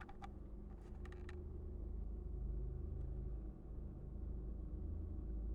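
A few light plastic clicks in the first second and a half as the RC boat's battery connector and motor-bay hatch are handled, over a low steady rumble.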